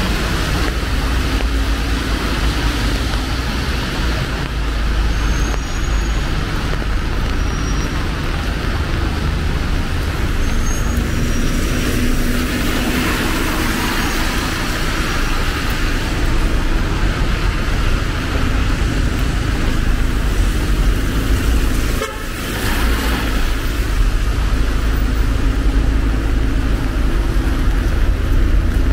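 Steady city street traffic: cars and buses passing on wet roads, with a constant low rumble and tyre and rain hiss.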